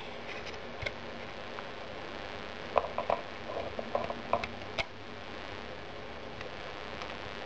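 Light plastic clicks and knocks, a faint few about a second in and then a cluster of sharper ones from about three to five seconds in, as a dismantled Siemens Gigaset C240 cordless phone handset and its bare circuit board are set down into the plastic charging cradle.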